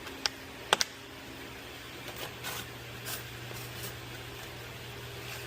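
A few sharp clicks and clinks in the first second, then softer scraping and rustling of tools and parts being handled during hose work under a car, over a steady low hum.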